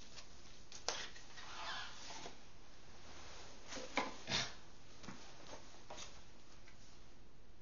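Gloved hands handling and turning a cardboard product box: a few light knocks and taps, one a bit under a second in and two close together about four seconds in, with a brief soft rustle between.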